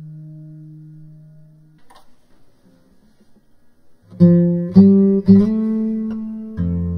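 Guitar music: a held note fades out, then after a quiet stretch three plucked chords strike about half a second apart and ring on, with a deeper note coming in near the end.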